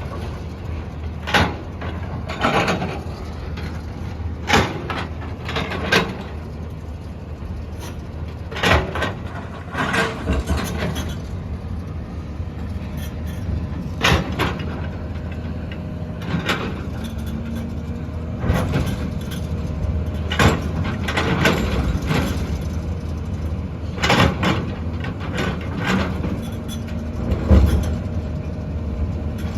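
A JCB 3DX backhoe loader's diesel engine runs steadily while the machine works. Short clanks and knocks come every second or few, irregularly.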